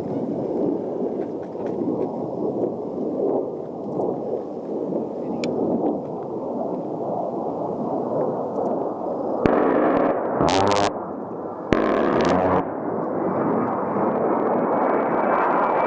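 A-10 Thunderbolt II's twin TF34 turbofan engines rumbling as the jet flies low past, with a falling whine about ten seconds in and a rising whine near the end. Two short harsh bursts of noise come around ten and twelve seconds in.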